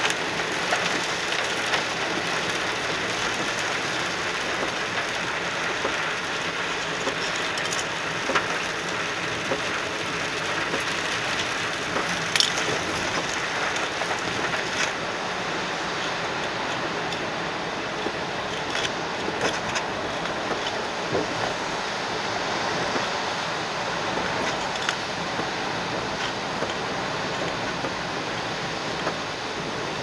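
Car driving through heavy rain on a flooded road, heard from inside the cabin: a steady rush of rain and tyre spray, broken by a few sharp clicks.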